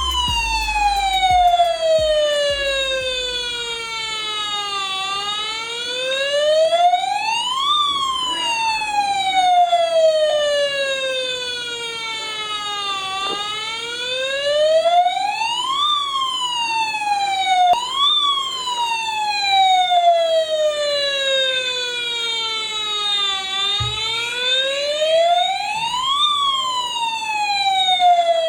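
Electronic wailing siren of a toy RC fire rescue truck. Its pitch rises quickly and falls slowly, repeating about every eight seconds.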